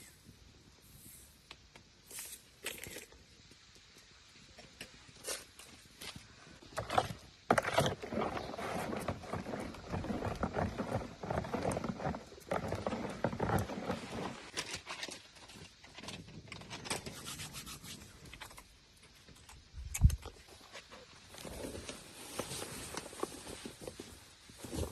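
Scraping and rubbing sounds, densest from about seven to fourteen seconds in, with scattered clicks and one sharp thump about twenty seconds in.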